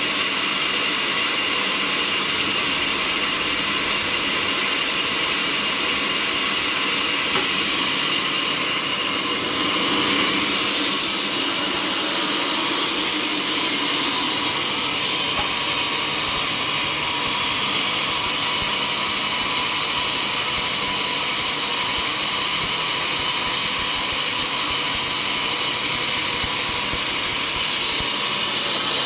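Sawmill saw running steadily: a loud, even whine with a few steady tones.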